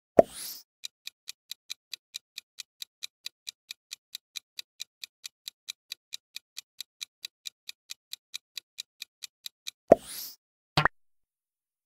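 Quiz countdown-timer sound effect: quick, even electronic ticks about four times a second for roughly nine seconds. The ticking is framed by a short loud sweep at the start and another near the end, followed by a quick double click.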